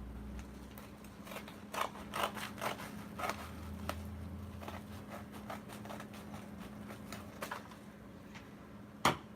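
A cardboard package being opened by hand: a run of short, irregular scrapes, rustles and clicks, with a sharper knock about nine seconds in, over a faint steady hum.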